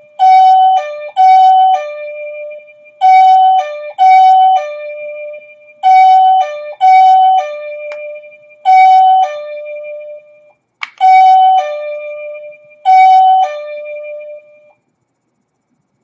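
Bedrocker plug-in wireless doorbell receiver playing its electronic chime, a higher note followed by a lower one, each time the transmitter button is pressed. It plays about six times over, then stops near the end.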